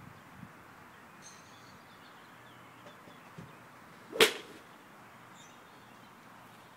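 Golf club striking a range ball in a full swing: one sharp crack about four seconds in.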